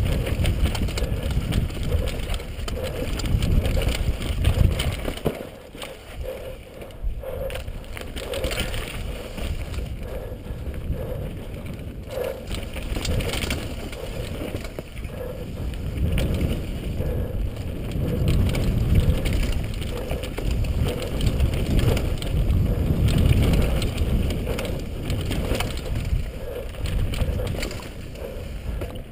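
KHS Lucky 7 downhill mountain bike ridden fast down a dry dirt trail, heard from a helmet camera: tyres running over dirt and rock with steady rattling and knocking from the bike, under a low wind rumble on the microphone. It eases briefly about five seconds in, then picks up again.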